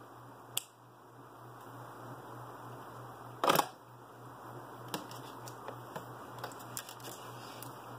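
Scissors snipping wire once, a short crunchy cut about three and a half seconds in, amid small clicks and light ticks of LED leads and parts being handled on the workbench. A steady low hum runs underneath.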